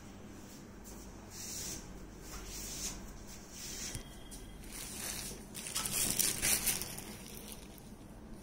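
Rustling and scuffing handling noises in a few short bursts, with the loudest, busiest stretch about six to seven seconds in.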